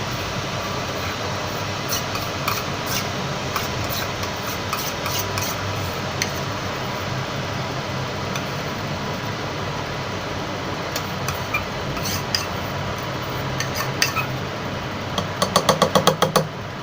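A spoon clinking and scraping against a mug as cake batter is spooned in, over a steady hiss from an electric kettle heating water. Near the end the mug is tapped quickly about ten times on the counter to release air bubbles from the batter.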